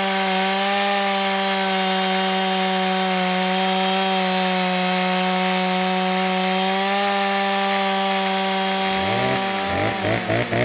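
Stihl two-stroke chainsaw running at full throttle, a steady high-pitched engine note. Near the end the throttle is let off: the engine speed drops and surges unevenly as it winds down.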